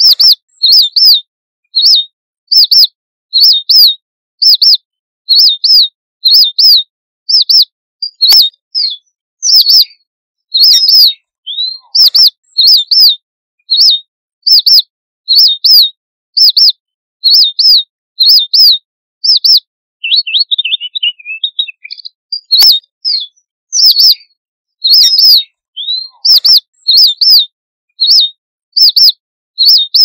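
Red avadavat (red munia, strawberry finch) flock calls: short, high, thin calls repeated about two a second, with a brief softer twittering about two-thirds of the way through.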